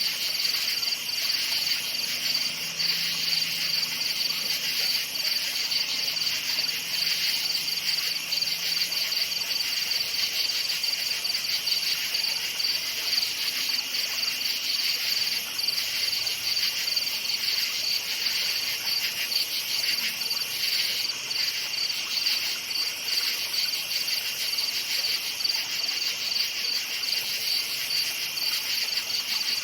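Crickets chirping at night in a steady, rapidly pulsing chorus. There is a faint low hum in the first few seconds.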